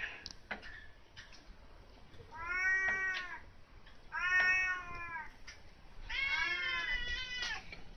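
A cat meowing three times: two meows of about a second each, then a longer, wavering one.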